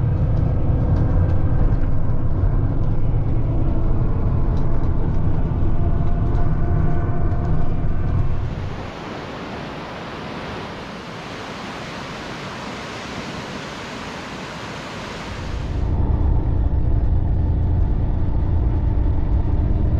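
Vehicle engine running with a steady low rumble and a few droning tones. In the middle it gives way for about seven seconds to an even rushing hiss, then comes back.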